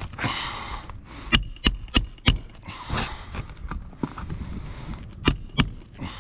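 Hammer striking roofing nails into asphalt shingles: four blows about a third of a second apart, then two more near the end, each with a short metallic ring, with softer rustling between.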